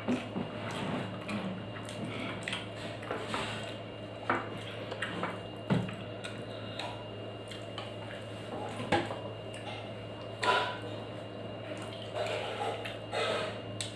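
Eating rice and curry by hand from a stainless steel plate: fingers mixing and scooping the wet food with soft squishing, and scattered clicks of fingers against the steel plate, with chewing as the food goes to the mouth.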